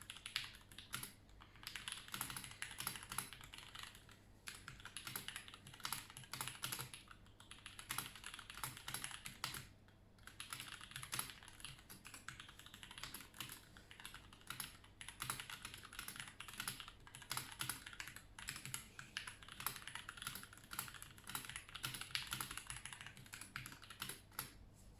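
Continuous fast typing on a Red Scarf 96 mechanical keyboard with lubed Gateron Brown switches and OG Cherry profile keycaps: a rapid patter of key clacks with a few short pauses, stopping just before the end.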